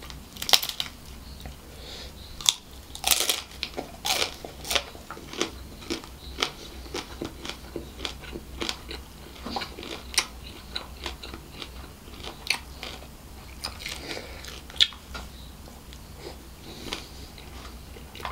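Close-up eating sounds: crab and seafood fried rice being bitten and chewed, with many sharp, irregular crunches.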